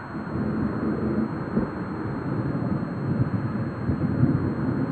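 Gusty storm wind buffeting the microphone: a low rushing rumble that swells and falls from moment to moment.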